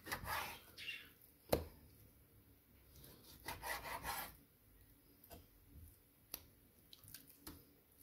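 A large chef's knife slicing raw pork neck on a bamboo cutting board: rasping strokes through the meat, with sharp knocks of the blade on the board, the loudest about one and a half seconds in.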